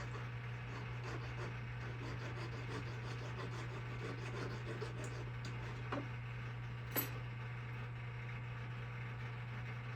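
CabKing 8 cabbing machine running with a steady motor hum while a silver piece is worked against its wet wheel, with two light clinks about six and seven seconds in.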